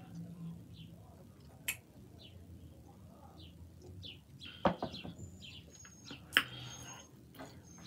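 Close-up eating sounds: chewing with small wet mouth clicks, and a drink from a metal tumbler with two sharp clacks, one about halfway through and one a little later as the tumbler is set down. Faint high chirps run throughout.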